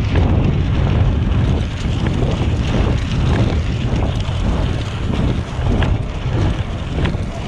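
Wind buffeting a handlebar-mounted GoPro's microphone while riding a bicycle on a paved trail, a heavy, unsteady low rumble over the tyres' rolling noise, with occasional small ticks.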